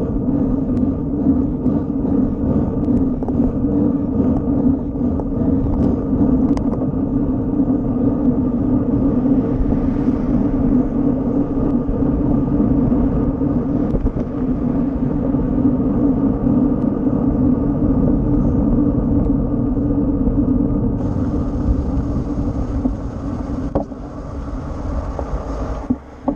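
Steady wind rumble and tyre road noise on a bike-mounted action camera while riding a road bicycle at speed. It eases off near the end as the bike slows to a stop.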